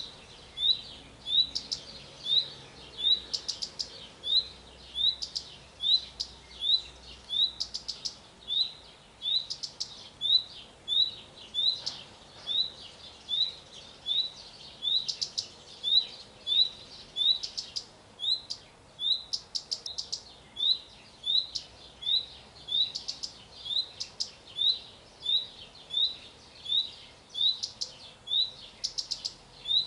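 Male common redstart calling over and over: a short rising 'hweet' whistle about every two-thirds of a second, with a quick run of 'tic' notes every couple of seconds.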